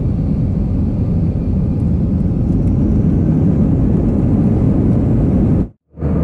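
Steady low rumble inside an airliner cabin on the ground at night, the jet engines running. It cuts out briefly near the end and gives way to a similar steady cabin rumble with a low hum.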